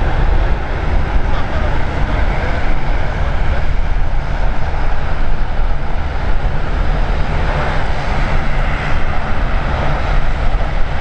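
Airliner engine noise at an airport, a steady jet sound, heavily overlaid by wind buffeting the microphone.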